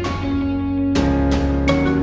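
Outro background music: plucked guitar notes over a steady bass, getting a little louder about a second in.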